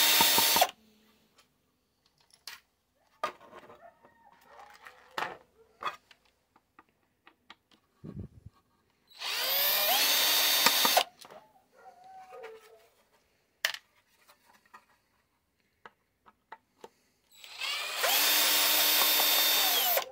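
Cordless drill-driver backing screws out of a radiotelephone's aluminium case, run in three bursts of about two seconds each: one stopping just under a second in, one about nine seconds in, one near the end. Each run spins up and winds down in pitch, with small clicks and rattles of handling between them.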